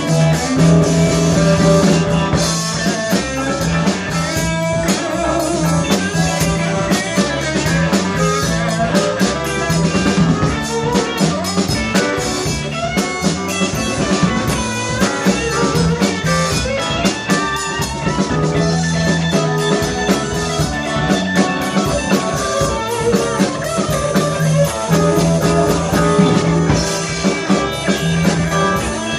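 Live blues band playing an instrumental stretch of the song, with electric guitar over a repeating bass line and a drum kit.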